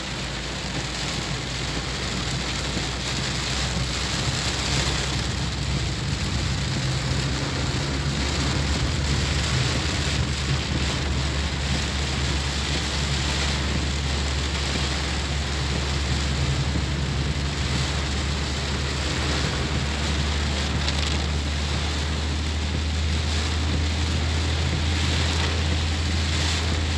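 Heavy rain beating on a car's windshield and roof, heard from inside the cabin as a steady loud rush, with the steady low rumble of the moving car underneath.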